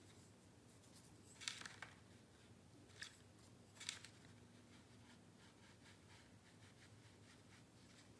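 Watercolour brush stroking across paper: a few short, soft scratches in the first half, over faint room hum.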